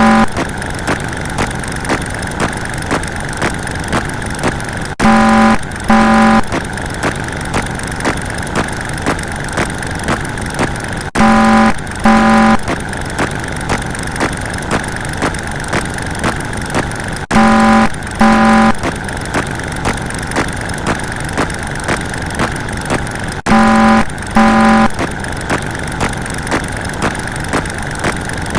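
Looped vehicle sound effect: a steady engine-like running noise, broken about every six seconds by a click and then two short horn honks in quick succession.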